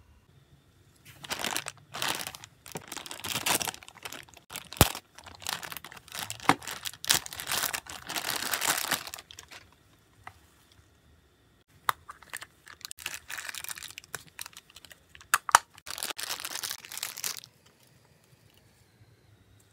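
Clear plastic wrapping being torn and crinkled by hand as a plastic capsule toy is unwrapped, in two long spells of rustling with a short pause between. A few sharp clicks stand out, from the hard plastic capsule being handled and opened.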